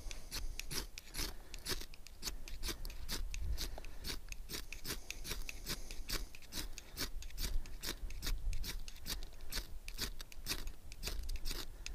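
Ferro rod (fire steel) scraped over and over with a striker, about three short rasping strikes a second, throwing sparks onto fire tinder that has not yet caught.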